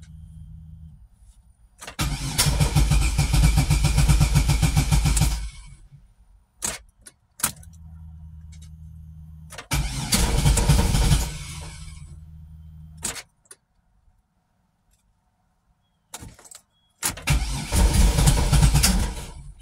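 Car engine cranked on the starter three times, each attempt lasting two to three seconds and stopping without the engine catching. Between attempts there are sharp clicks and a low steady hum. This is a hard start that the owner puts down to the fuel pump.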